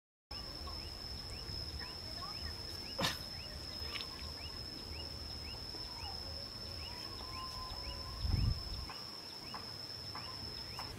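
Outdoor nature ambience: a steady high-pitched insect drone with short rising bird chirps repeating about twice a second and a few lower whistled bird calls. A sharp click about three seconds in and a low thump about eight seconds in.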